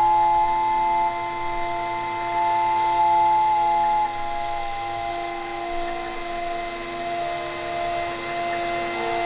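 Vevor water-cooled CNC router spindle running at about 20,000 RPM with a steady whine. Over it, another tone steps up and down in pitch every half second to a second.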